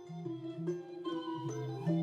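Instrumental music: a tune of quick struck or plucked notes over a low bass line, growing louder.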